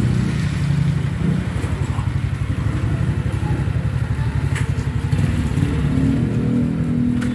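Suzuki Raider J Fi 115's single-cylinder four-stroke engine running at low revs, freshly set to valve clearances of 0.04 mm intake and 0.11 mm exhaust; the engine note rises a little near the end.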